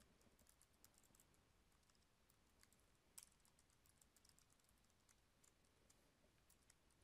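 Faint computer keyboard typing: a run of soft keystrokes, one a little louder about three seconds in.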